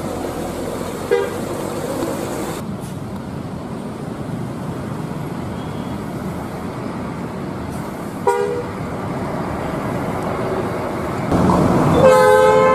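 Buses driving past with engines running, giving short horn toots about a second in and again around eight seconds; near the end a louder, longer horn of several tones sounds together.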